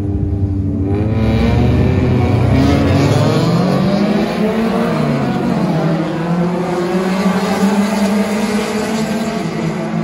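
Several Nissan Pulsar race cars at full throttle along the straight, their engine notes climbing in pitch. About halfway through, one car's note drops as it goes by.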